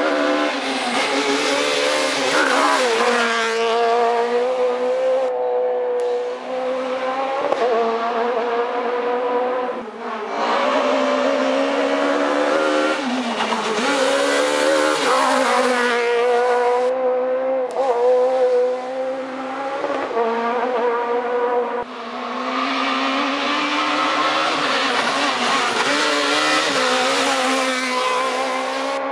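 Rally car engines revving high as the cars approach and pass, the pitch climbing and falling again and again with short breaks as the drivers change gear and brake for the bends.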